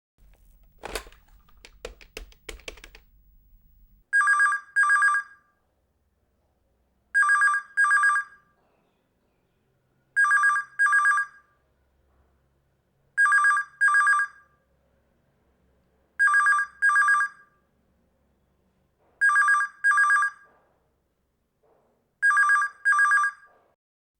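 Old landline telephone ringing in a double-ring pattern: seven pairs of short rings, one pair about every three seconds. A few sharp clicks come before the first ring.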